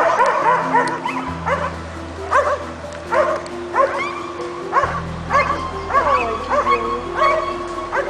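Repeated short, dog-like yipping calls, about two a second, each sliding up and down in pitch. Under them runs background music with sustained low notes that change twice.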